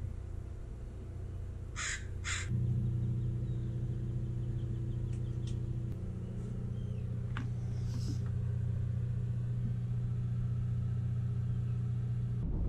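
A crow caws twice in quick succession about two seconds in, over a steady low engine hum that gets louder a moment later.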